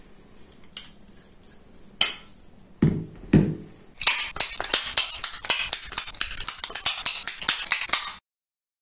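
A sharp click about two seconds in and a dull thud, then from about four seconds a fast run of sharp percussive clicks, about six a second, making up a short channel intro sting that cuts off abruptly near the end.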